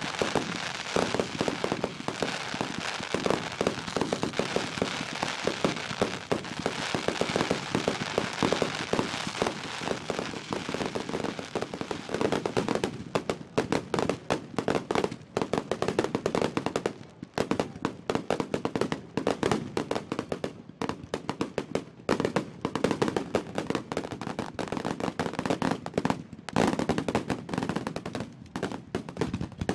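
Fireworks display: shells bursting in a dense, continuous crackle, which about halfway through breaks into rapid strings of separate sharp bangs, like a machine gun.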